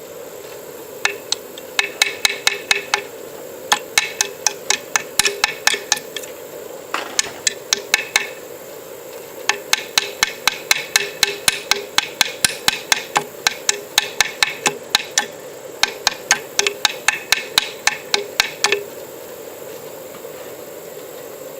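Rapid light taps of a 3D-printed PLA hammer striking a nail into wood, in quick runs of about four or five blows a second with short pauses, stopping about three-quarters of the way through. The hammer is so light that the blows barely drive the nail.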